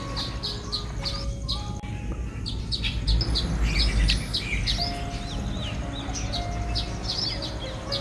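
Small backyard birds chirping: a busy string of short, high chirps, over soft background music with long held notes. A low rumble swells around the middle.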